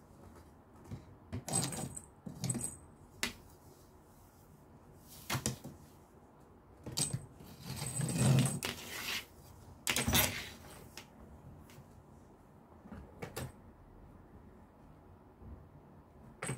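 Cat toys being played with: short bursts of rustling and light metallic jingling a second or more apart. The loudest cluster comes about halfway through.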